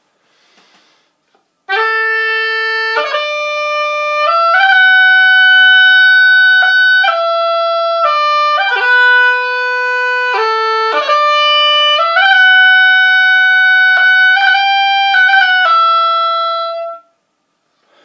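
Oboe playing a slow traditional Irish melody in bagpipe style: the notes run on without gaps, with quick grace-note ornaments flicked in before melody notes. It starts about two seconds in and stops just before the end.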